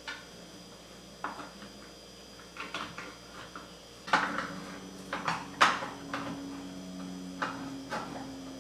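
Utensils scraping and clinking against a nonstick metal loaf pan as a baked cake is loosened from its sides and a piece is lifted out. A string of sharp knocks and scrapes, the loudest about four and five and a half seconds in.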